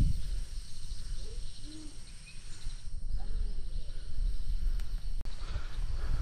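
Insects chirping in rapid trains of short, high pulses over a steady low rumble, with a few faint short calls in between.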